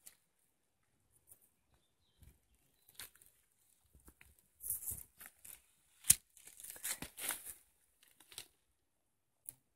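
Footsteps crunching and scuffing on loose stone fragments, then stones clinking and shifting as a rock is picked up by hand, with one sharp click of stone on stone about six seconds in.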